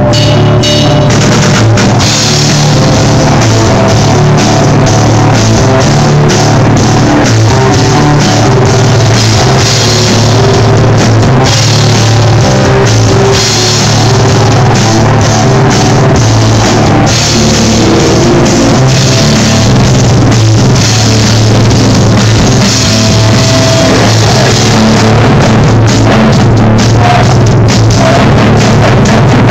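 Live rock band playing with a prominent drum kit at a sound check. The recording is loud and overloaded, and the sound is of bad quality.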